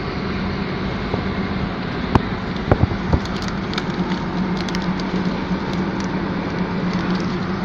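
Engine and road noise heard inside the cab of a moving truck: a steady drone, with a few sharp knocks or rattles about two to three seconds in.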